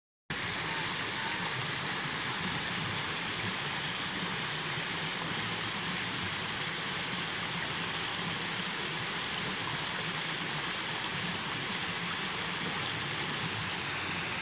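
Steady, unbroken rushing of water, with no distinct events over it.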